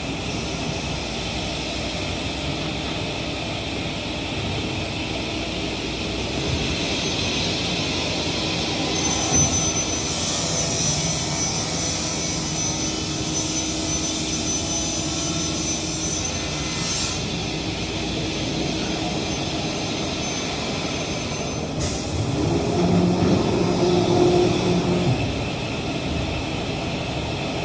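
Steady industrial noise of woodworking shop machinery running. A thin high whine holds from about six seconds in and cuts off sharply around twenty-two seconds. A louder low hum then swells for a few seconds near the end.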